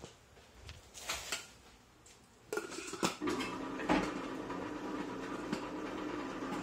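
Can seaming machine's electric motor starts about two and a half seconds in and runs steadily. Before and over it come clinks and knocks as a can and its lid are handled and set on the base plate.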